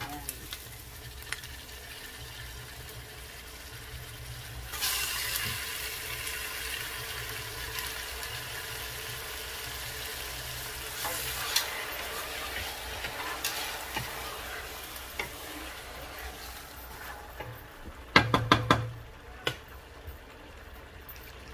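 Raw chicken pieces sizzling in hot oil with sautéed ginger, garlic and onion in a stainless steel pot, stirred with a wooden spatula. The sizzle jumps up about five seconds in and slowly dies down, and near the end comes a quick run of loud knocks.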